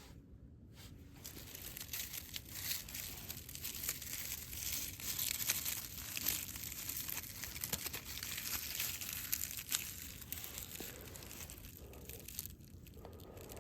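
Dense crinkling and rustling, like material being crumpled or handled, starting about a second in and easing off near the end.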